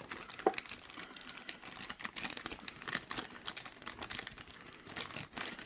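Plastic wrapping around a plush toy crinkling and crackling in quick, irregular little ticks as it is handled and opened.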